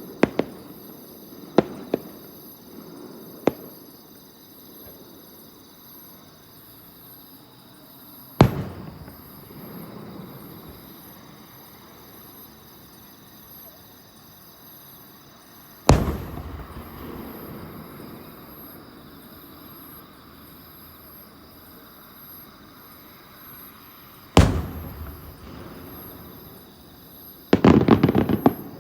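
Aerial fireworks shells bursting. There are a few sharp pops in the first few seconds, then three big booms about eight seconds apart, each trailing off in a long rolling rumble. A quick run of crackling bursts comes near the end.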